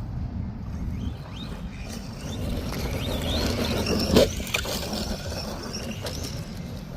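Radio-controlled ARRMA Vorteks truck driving on dirt, its electric motor whining up and down in short bursts of throttle, with a sharp thump about four seconds in.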